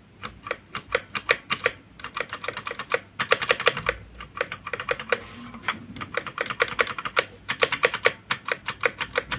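Spacebar of a Cosmic Byte mechanical keyboard with red switches pressed over and over, a fast run of sharp clacks, several a second. It sounds clean and good, free of the bad noise that got the first keyboard returned.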